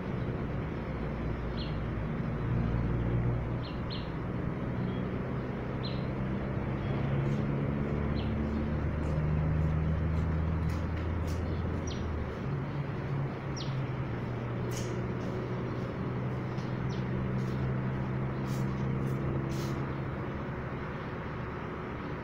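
An engine runs steadily with a low hum whose pitch shifts a little now and then. Short, high bird chirps come through at intervals.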